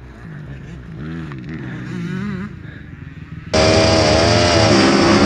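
Dirt bike engine revving, its pitch rising and falling. About three and a half seconds in it cuts suddenly to much louder revving from several motocross bikes lined up at the starting gate.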